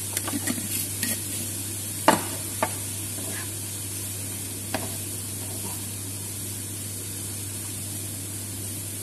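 Riced cauliflower sizzling as it fries in a nonstick frying pan, stirred with a wooden spatula that knocks and scrapes against the pan several times in the first five seconds, most sharply about two seconds in. The frying goes on as a steady hiss after the stirring knocks stop.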